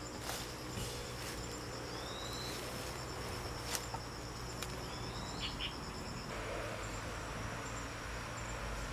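Outdoor insect chorus: an insect trilling steadily on one high pitch, which stops about six seconds in, with three short rising chirps and a few sharp clicks, the loudest near four seconds in.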